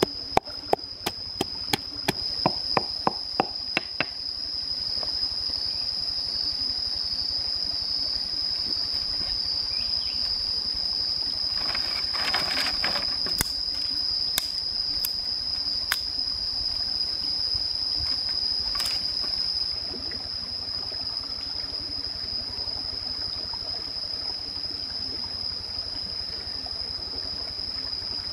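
Wooden pestle pounding garlic and peppercorns in a wooden mortar, about three strikes a second, stopping about four seconds in. After that, a steady high-pitched insect drone over an even background rush.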